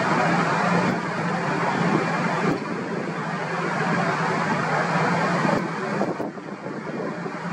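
Steady vehicle noise, a broad rumble with a low hum under it, dropping in level abruptly twice: about two and a half seconds in and again after about five and a half seconds.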